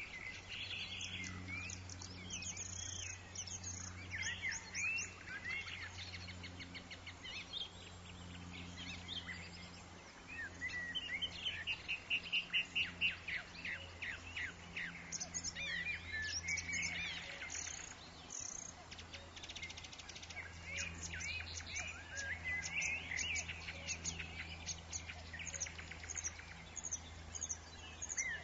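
Several small birds chirping and singing over one another, with a fast trill about halfway through, over a steady low hum.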